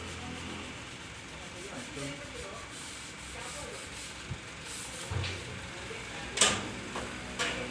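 Sand sliding out of a tipped dump-truck bed as a steady hiss, with the truck's engine running low underneath. Two sharp knocks near the end, the first the louder.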